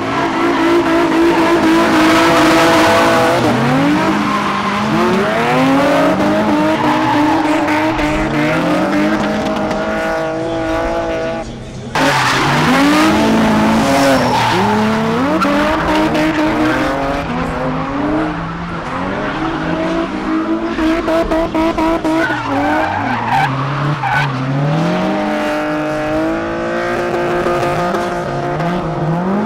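Drift cars, including a Nissan 350Z, sliding in tandem: several engines revving up and down, rising and falling every second or two, over tyres squealing and skidding. The sound dips briefly and jumps back abruptly about twelve seconds in.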